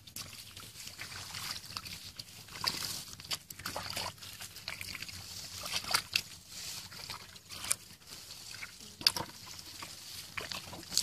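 Hands splashing and squelching in shallow muddy water while groping for fish, irregular sloshes and slaps with a few sharper splashes in the second half.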